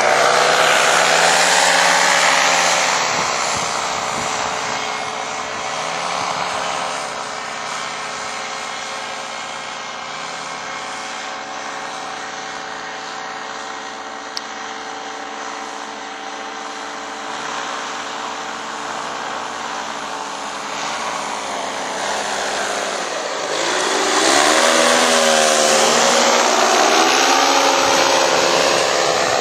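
Parasport Fun-Alu 125 paramotor's engine and propeller droning in flight. The sound is strongest at the start, fades as the paramotor moves away, then swells again about three-quarters of the way in as it passes close, its pitch bending down as it goes by.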